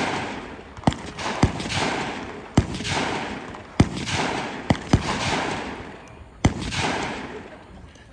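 Gunshots from a competition shooting stage, about seven single shots fired roughly a second apart with two in quick succession near the middle. Each shot is followed by a long fading echo.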